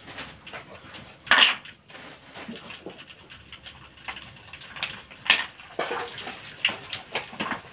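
Raw krupuk crackers frying in hot oil in a wok: sizzling, with irregular crackles and pops as the crackers go in. There is a louder hiss about a second and a half in, and sharper pops in the second half.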